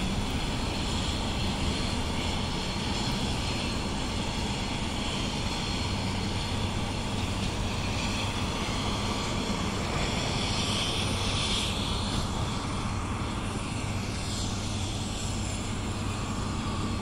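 Distant helicopters flying, a steady engine and rotor hum that swells a little about ten to twelve seconds in.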